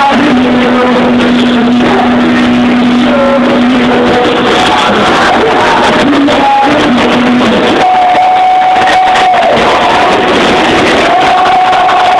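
A live worship band plays loud music with singing, heard through a phone's microphone in a large hall. Long notes are held, a low one for the first few seconds and higher ones later.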